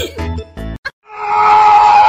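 Music with a pulsing bass beat that cuts off just under a second in; after a brief silence a loud, steady held scream begins and carries on.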